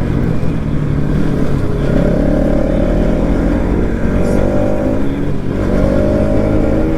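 Bajaj Pulsar NS200's single-cylinder engine running hard while riding, its pitch climbing under acceleration, dipping briefly about five seconds in, then climbing again.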